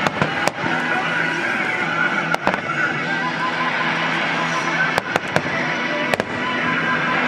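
Fireworks shells bursting in sharp bangs: two near the start, a pair about two and a half seconds in, a rapid run of four around five seconds in and two more just after six. Under them runs a steady background of music and crowd noise.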